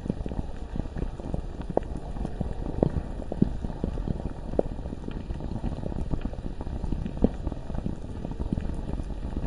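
Bubbling lava ambience: thick, irregular bubbling with many low, dull pops over a steady low rumble.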